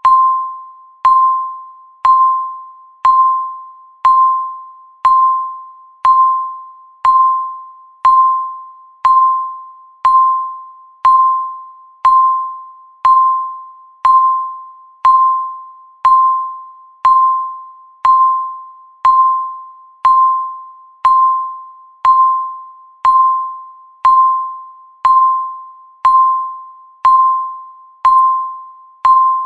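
Countdown timer's tick sound: a single clear, bell-like ding struck once every second, each one ringing and dying away before the next.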